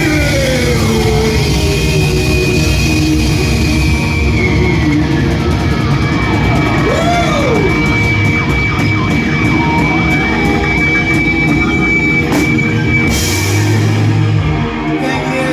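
Live rock band playing loud distorted electric guitars, bass and drums in the song's closing stretch. It has sliding guitar lines and a long held high note, and the music drops away about a second before the end.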